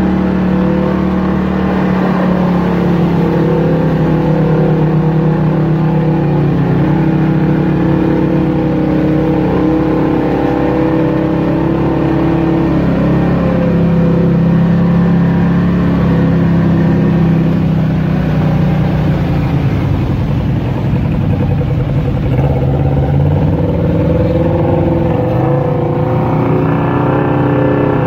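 Off-road vehicle engine running through mud, a steady drone whose pitch rises and falls with the throttle and dips a little about two-thirds of the way through.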